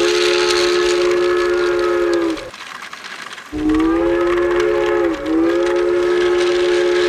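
Steam-train whistle sounding in long, steady chorded blasts: one blast, a break of about a second, then a longer blast with a brief dip in pitch about five seconds in.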